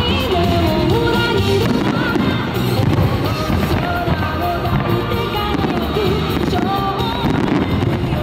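Music with a sung melody playing loud over fireworks bursting and crackling.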